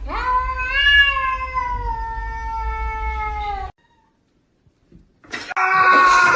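An angry cat's long, drawn-out yowl, rising at first and then slowly sagging in pitch, cut off abruptly after about three and a half seconds. After a short silence, another loud, harsher cry begins near the end.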